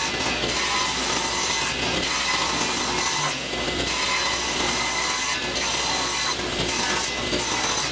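Table saw crosscutting cedar boards to length, the blade running through the wood with a few brief dips between cuts, sped up to four times normal speed.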